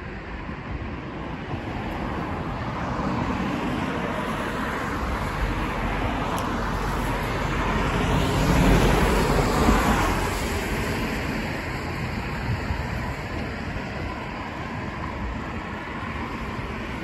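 Street traffic: a vehicle passes close by, the noise swelling to a peak about nine seconds in and then fading back to a steady traffic hum.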